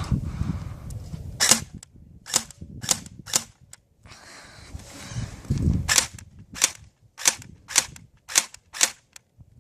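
Airsoft gun firing single shots, sharp snapping cracks: a string of four, a pause, then six more at about two a second.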